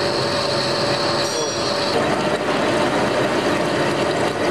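Metal lathe running under a cutting pass as it turns a stepped cylindrical part: a steady machine noise with a held high whine that fades out about two seconds in.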